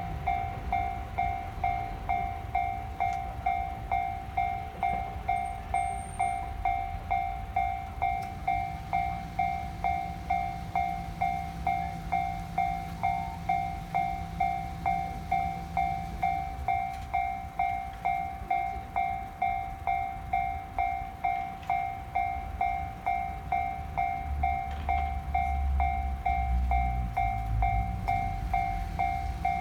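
Japanese railway level-crossing alarm bell ringing steadily in an even, repeating rhythm: the crossing is closed with a train approaching. Under it runs the low rumble of trains, which grows louder for a few seconds near the end as a train passes.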